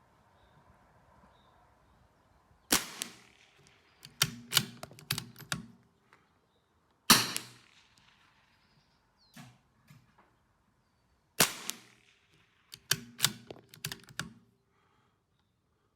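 Three shots from a CZ 457 AT-ONE .22 LR bolt-action rifle firing Wolf Match Target ammunition, about four and a half seconds apart. Each shot is followed by a quick run of metallic clicks as the bolt is worked to eject and chamber the next round.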